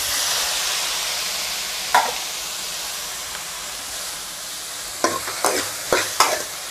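Chopped tomatoes sizzling as they land in hot oil with frying onions in a metal kadai; the sizzle starts sharply and slowly eases. From about five seconds in, a metal spoon scrapes and clinks against the pan as the mixture is stirred.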